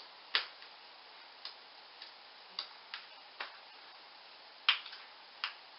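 Plastic DVD cases clicking and tapping against each other as a hand sorts through them on a shelf: about eight light, irregular clicks, the loudest about half a second in and near the end.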